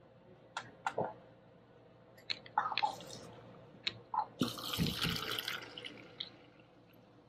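Soda fountain pouring cola from its nozzle into a paper cup: a hissing, splashing stream starting about four seconds in and fading out about a second and a half later. Before it come a few sharp clicks and knocks at the machine.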